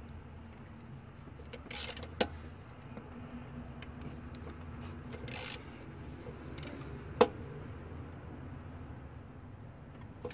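Clicks and metal clinks of a ratchet and socket working loose the EGR valve's mounting bolts, with two sharp metallic knocks, about two seconds in and about seven seconds in, the loudest. A faint steady low hum runs beneath.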